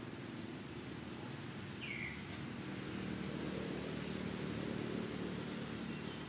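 Outdoor ambience: a steady low rumble that swells slightly midway, with one short, high, falling chirp about two seconds in.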